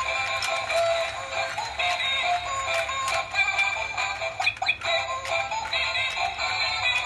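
Penguin escalator toy playing its cheerful electronic tune through its small built-in speaker, with almost no bass, while the plastic penguin figures clack over and over as they ride up and slide down the track.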